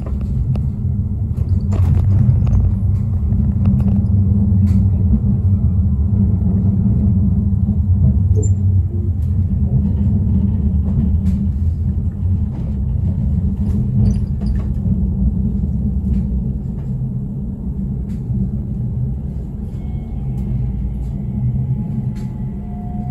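Tram running along its track, heard from on board: a steady low rumble with scattered clicks and knocks from the wheels on the rails.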